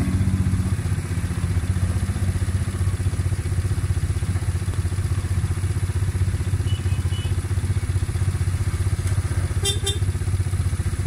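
ATV engine idling steadily close by, with a couple of faint brief clicks near the end.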